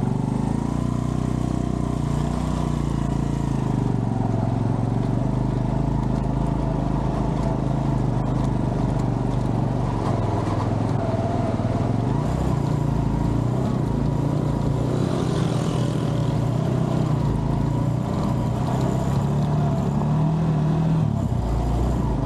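A vehicle engine running steadily while under way, its pitch shifting a little with speed and rising near the end.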